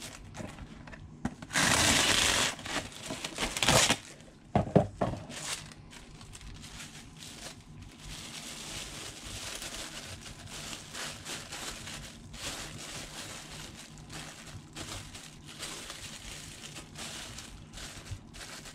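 Glad Press'n Seal plastic wrap: a loud stretch of rustling as a sheet is pulled off the roll and torn free in the first few seconds, a few sharp crackles, then softer continuous crinkling as the wrap is pressed loosely around a skull.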